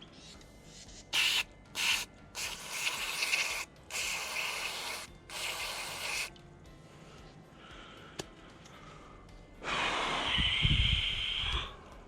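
Cleaning out the speedometer cable port on a motorcycle's front wheel hub: several short bursts of hissing, scrubbing noise in the first half. Near the end comes a longer, louder burst with a steady high whistle in it.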